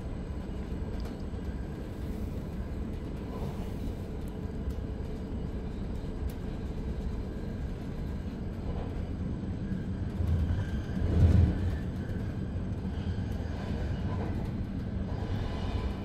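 Interior running noise of a Swiss double-deck DPZ commuter train under way: a steady low rolling rumble of wheels on track. About two-thirds of the way through, a louder low rumble swells briefly.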